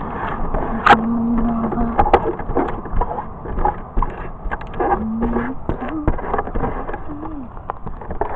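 A hand handling the RC car's plastic body right beside the onboard camera's microphone: a run of irregular clicks, knocks and rustles.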